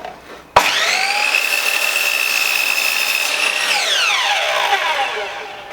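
Scheppach HM100LXU 254 mm sliding compound mitre saw's electric motor switching on with a sharp start and rising whine, running steadily for about three seconds while the blade cuts a piece of oak, then switching off and spinning down in a long falling whine.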